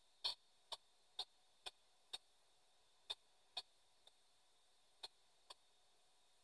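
P-SB7 spirit box sweeping through radio frequencies, heard as faint, evenly spaced clicks about two a second, thinning out after about three and a half seconds.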